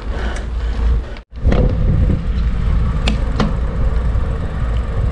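Steady rumbling wind and road noise from riding a bicycle along a road. It cuts out abruptly for a moment about a second in, and two sharp clicks come a little past the middle.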